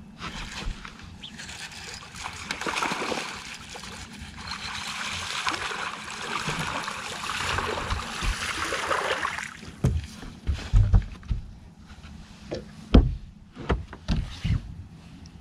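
Water splashing and sloshing for about nine seconds, then several dull knocks and thumps, one standing out as the loudest.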